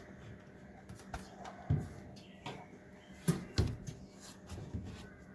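Irregular light knocks and clicks, with three louder knocks about a third, two thirds and three quarters of the way through.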